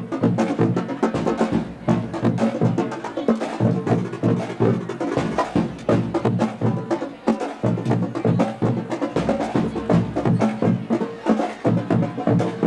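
Marching band drumline playing a fast, steady drum cadence: snare, tenor and bass drums struck together in a dense rhythm.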